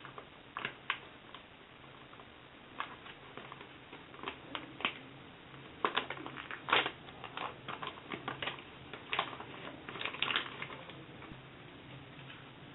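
An irregular scatter of light clicks and taps, sparse at first and busiest in the middle, over faint room hum.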